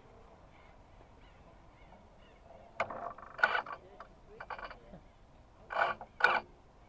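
Geese honking: several short, separate honks over the background, starting about three seconds in.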